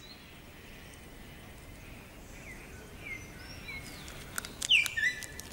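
Faint forest ambience with small birds giving short gliding chirps from about two seconds in. A few sharp clicks and a louder chirp come near the end.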